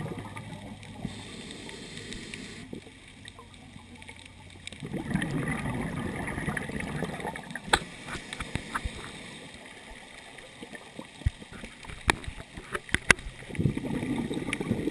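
Underwater sound heard through a GoPro dive housing: a scuba diver's exhaled breath bubbling out of the regulator in two long bursts, about five seconds in and again near the end, with scattered sharp clicks in between.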